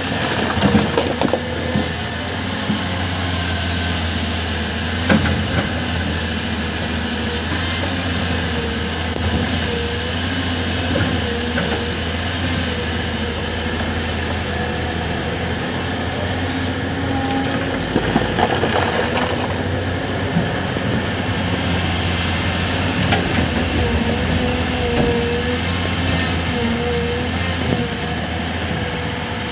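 Excavator's diesel engine running steadily under load, with scattered metallic knocks and clanks of rock being raked and loaded.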